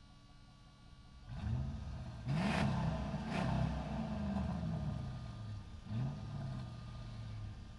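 Truck engine pulling away and revving through the gears in a parking structure, its pitch rising and falling several times. Two sharp noisy bursts come a little over two and three seconds in.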